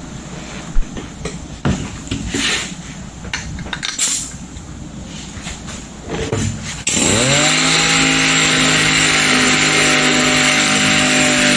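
Scattered knocks and scraping, then about seven seconds in a power tool motor spins up quickly and runs steadily at a loud level, with a strong hiss.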